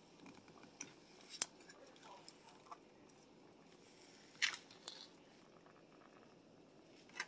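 A few sharp clicks and taps of kitchen handling, such as a utensil or container being touched, over a faint steady background; the loudest comes about a second and a half in, with two more a little after halfway and one near the end.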